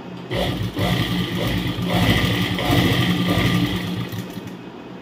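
Sewing machine running and stitching through folded fabric, starting just after the beginning, with a brief break before one second, then a steady run that slows and stops about four seconds in.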